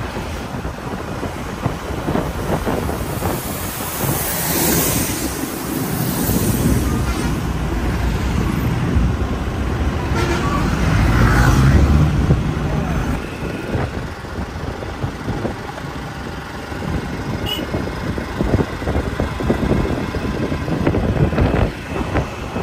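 Road vehicle travelling along a road: a steady engine and road rumble with wind on the microphone.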